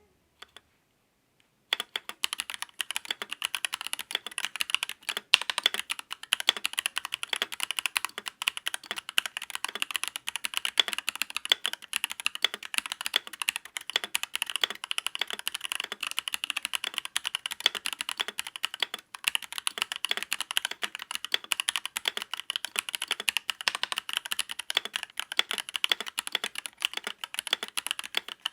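Royal Kludge RK84 Limited Edition mechanical keyboard being typed on fast and continuously, a dense run of key clicks that starts a little under two seconds in.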